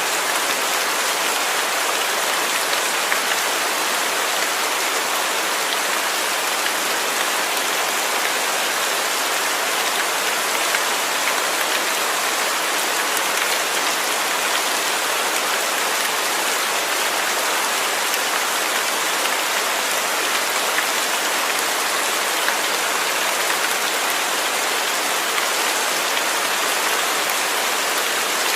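Steady rain falling, an even hiss of many drops with faint patters, unchanging throughout.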